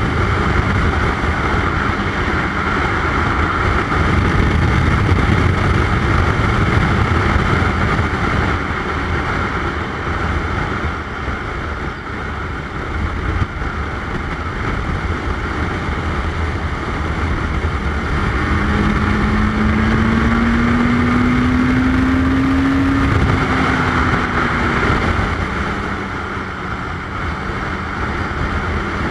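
1985 Suzuki GS700ES air-cooled inline-four motorcycle running at road speed, with wind rushing over the microphone. About two-thirds of the way through, a whine climbs in pitch for a few seconds, then eases back down.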